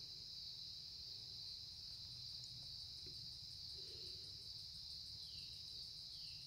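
Faint, steady high-pitched trill of an insect chorus of crickets, unbroken throughout.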